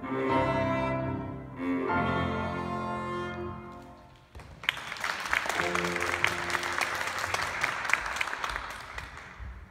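Cello and grand piano playing the closing chords of a piece; the last chord is held and dies away about four seconds in. Applause follows and carries on to the end.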